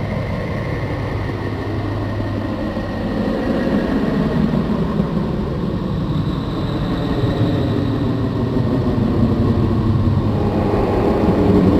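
Low rumbling drone with faint wavering tones, slowly growing louder: a 'planet sound' made audible from space-probe recordings.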